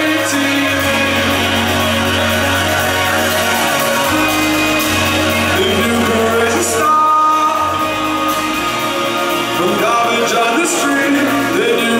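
A live rock band playing a song: a man singing lead over electric guitar, bass guitar and drums, heard from among the audience.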